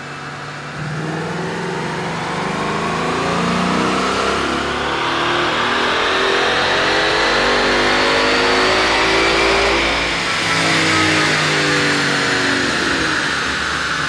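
2015 Mustang GT's Gen 2 Coyote 5.0 L V8 making a full-throttle dyno pull in fifth gear. The pitch rises steadily for about ten seconds, then the throttle closes and the revs fall away. The engine carries P0300 random-misfire and P0308 cylinder-8 misfire codes; the cause was a broken intake manifold runner control valve shaft.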